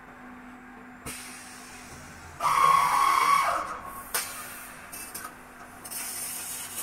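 Laser tube-cutting machine working an H-section profile: a loud hiss with a steady whine for about a second and a half from around two and a half seconds in, then a few short clicks, then a rising hiss as the beam starts cutting and throwing sparks near the end.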